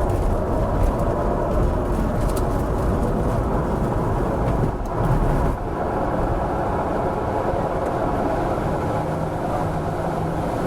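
Glider's takeoff roll heard from inside the cockpit: a steady rumble of the wheel running over the runway under a rush of air noise. About five and a half seconds in the deep rumble falls away and the noise turns smoother, as the glider lifts off.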